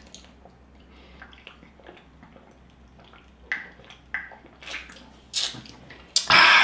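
Someone drinking canned soda: a few short gulping swallows about half a second apart, then a loud short burst of sound near the end.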